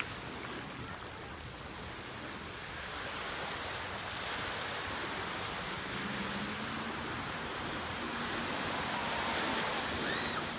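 Ocean surf washing on a shore, a steady rush of water noise. A faint low hum comes in about six seconds in, and a few faint high chirps sound near the end.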